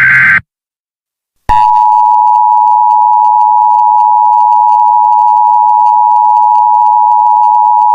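The tail of an Emergency Alert System SAME header data burst, a buzzing two-pitch squawk that stops within the first half second. After about a second of silence, the EAS two-tone attention signal (853 and 960 Hz together) comes in about a second and a half in and holds steady and loud. It announces the alert that follows.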